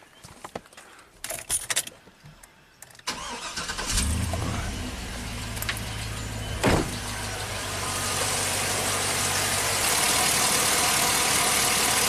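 After a few faint knocks, the 2005 Chevy Silverado 2500HD's V8 cranks and starts about three seconds in and settles into a steady idle, running with a misfire that moved from cylinder two to cylinder four after the spark plug wires were swapped, pointing to a faulty plug wire. The engine grows louder near the end, heard close up from the engine bay.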